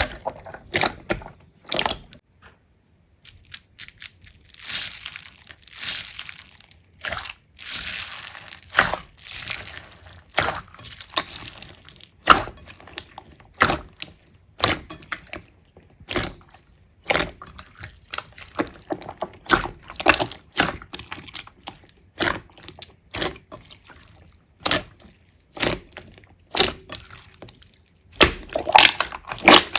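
Slime being squeezed, pressed and poked by hand, giving irregular crackling pops and wet squelches.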